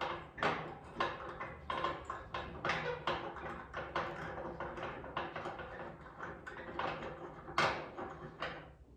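Hand tap in a T-handle tap wrench being turned in a freshly tapped, weld-filled hole in steel, giving irregular metallic clicks about two or three a second, one louder click near the end.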